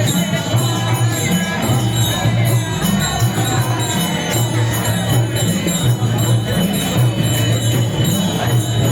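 Traditional Newar procession music: drums keeping a steady beat under small hand cymbals clashing in a rhythmic jingle.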